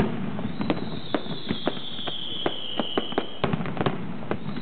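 Aerial fireworks display: a rapid, irregular string of sharp bangs and pops, roughly two to four a second. Over them a high whistle slowly falls in pitch from about half a second in.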